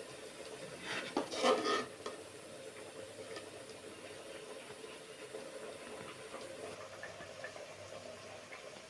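A metal spoon clinking and scraping in a bowl of thick curry, with a short clatter about a second in, then quieter stirring and light taps over a steady background hum.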